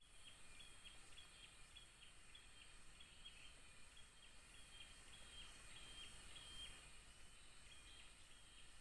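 Faint forest ambience: a bird repeats a short, high call about twice a second, pausing about seven seconds in, over a steady faint high insect hum.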